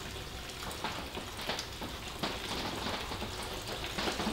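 Fermented plum mash being siphoned through a thin hose, the liquid trickling and splashing steadily, with a few irregular sharper splashes.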